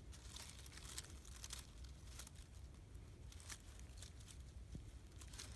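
Faint scattered rustles and soft crackles in trail ground cover, a few at irregular intervals.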